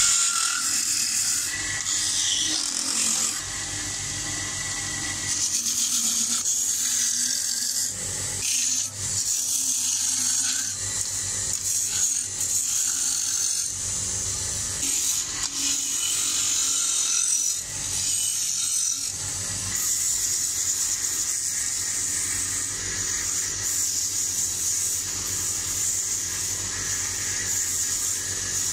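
Wood lathe running while a long turning gouge cuts into the spinning wood blank: a continuous hiss of shavings being peeled off over the hum of the lathe, rising and falling as the tool bites.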